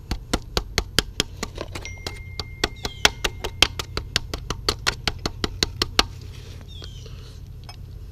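Ratchet wrench clicking in a fast, even run, about six clicks a second, stopping suddenly about six seconds in, with a steady low hum underneath.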